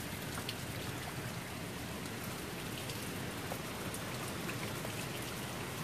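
Steady rain falling: an even hiss with a few faint drop ticks.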